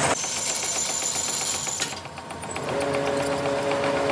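A machine running with a steady hum and fast, even ticking, after an abrupt change in the sound about two seconds in.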